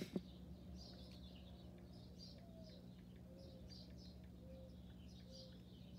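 Near silence: a steady low hum with faint, repeated high bird chirps, after a single sharp click at the start.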